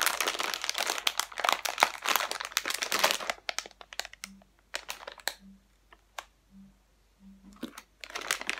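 Plastic candy bag crinkling loudly as it is gripped and pulled open, for about three seconds; then only a few scattered rustles, and the crinkling picks up again near the end as a hand goes into the bag.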